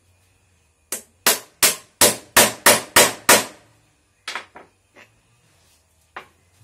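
Hammer blows on a steel drift, driving a 6204 ball bearing into a trolley wheel's hub. Eight sharp strikes come about three a second, then a few lighter taps.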